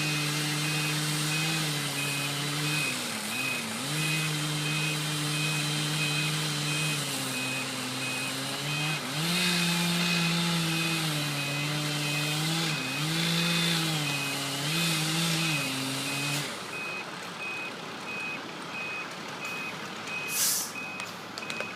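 A truck's reversing alarm beeping steadily over a vehicle engine whose pitch dips and recovers several times. The engine stops about 16 seconds in while the beeping goes on, and a short hiss comes near the end.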